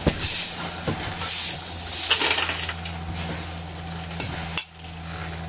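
Green coffee beans shifting and rattling in a metal colander with small clicks, over a steady low hum and rush of air from an electric fan.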